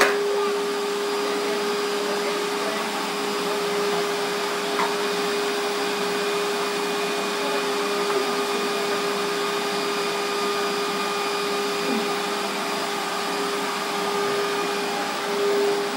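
Vacuum cleaner running steadily with a constant whine as its floor head is pushed across a tiled floor.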